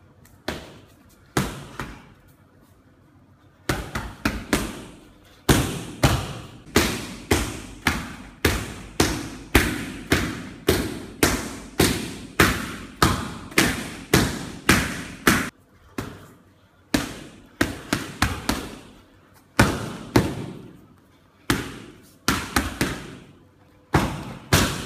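Gloved strikes landing on Muay Thai pads, sharp smacking thumps with a short echo. A few single hits come first, then a quick run of about two strikes a second for some ten seconds, then scattered hits and short combinations.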